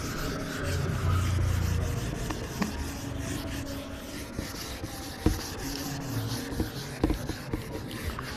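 Whiteboard eraser wiping marker writing off a whiteboard in quick back-and-forth strokes, busiest in the first couple of seconds. A couple of light knocks come in the second half.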